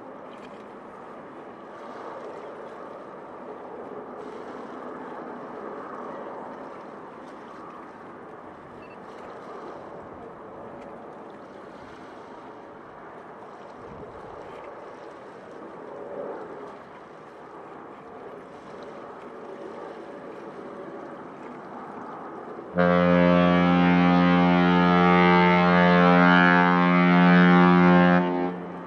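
Faint steady background noise, then about 23 seconds in a single long, loud ship's horn blast, a deep rich tone held steady for about five seconds before it cuts off.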